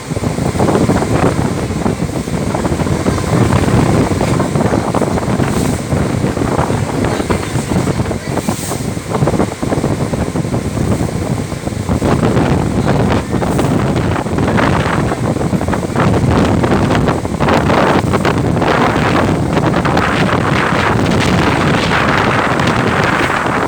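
Strong wind buffeting the microphone on a ferry's deck, a loud, gusting rush that blows harder about halfway through.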